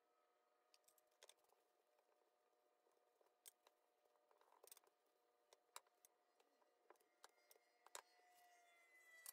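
Near silence: a faint steady hum of room tone with scattered light taps and clicks from dough being handled and rolled out with a wooden rolling pin on a silicone mat.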